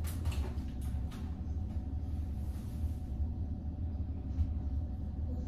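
Steady low background rumble with a faint hum, like a ventilation fan running, and a few soft ticks in the first second.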